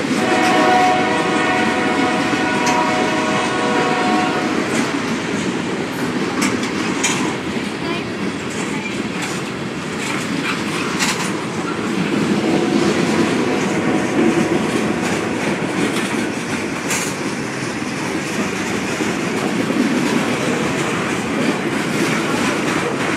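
Union Pacific freight train passing at close range, its cars' wheels rumbling and clacking on the rails with a few sharp clanks. A train horn sounds steadily for about five seconds at the start.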